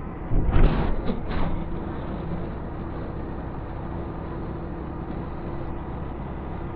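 Motorcycle on the move: a steady rumble of engine, tyres and wind, with a faint steady hum. There are a few loud rushes of noise between about half a second and a second and a half in.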